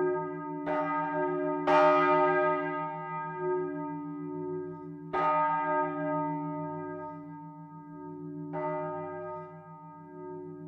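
The great 1524 Watterin bronze bell, tuned to E-flat, swinging and struck by its clapper four times, each stroke ringing on over a pulsing low hum. The strokes come further apart and the last is fainter: the swing is dying away.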